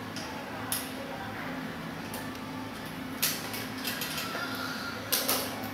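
A few sharp clicks and light knocks of parts being handled and fitted on a bicycle handlebar, one about a second in, one about three seconds in and a quick pair near the end, over a steady low hum.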